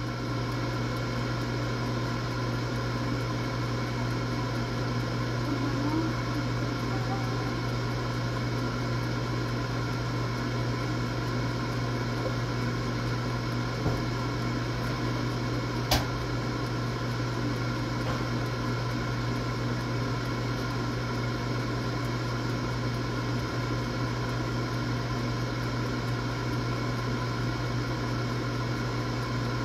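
Countertop air fryer running with a steady fan hum while it cooks, with two short clicks midway.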